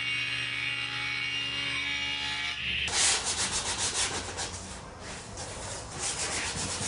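Table saw motor running steadily with a constant hum. About three seconds in it gives way suddenly to a coarse rubbing on wood in quick repeated strokes that fades briefly and comes back.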